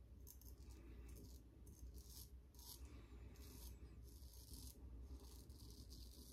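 Shavette-style straight razor scraping through lathered stubble on the cheek in a series of short, faint strokes, about two a second.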